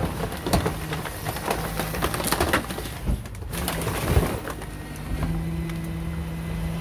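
Rear-lift rubbish truck running with a steady low hum, with clanks and knocks from the rear loading hopper.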